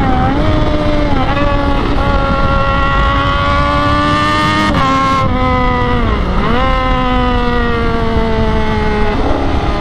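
Triumph Daytona 675's three-cylinder engine breathing through an aftermarket 3-into-1 full exhaust collector with an Austin Racing tip, under way at road speed. The note climbs slowly for the first half, drops sharply at a gear change near the middle, then sinks gradually as the throttle eases, stepping up again near the end.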